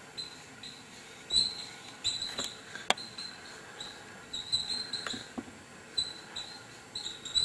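Marker pen squeaking across a whiteboard in short writing strokes, a string of brief high squeaks with a few sharp taps as the tip meets the board.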